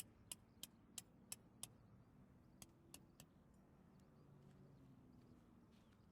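A series of sharp clicks, about three a second for roughly two seconds, then three more after a short pause, over a faint low hum.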